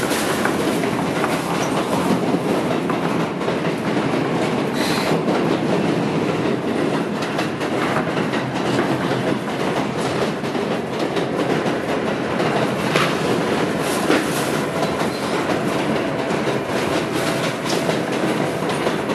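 New York City subway F train running between stations, heard from inside the car: steady rumbling running noise with the wheels clacking over the rail joints.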